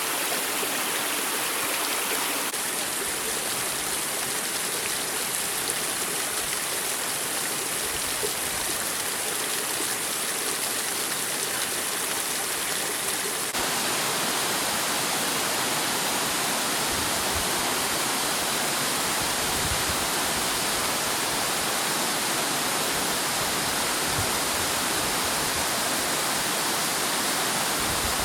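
Spring-fed waterfall rushing and splashing steadily, heard as an even hiss of falling water. Its tone shifts slightly twice, about two seconds in and again about halfway through.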